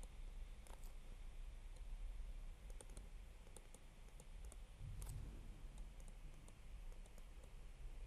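Faint scattered clicks and taps of a stylus tip on a tablet screen while handwriting, over a low steady hum, with a soft thump about five seconds in.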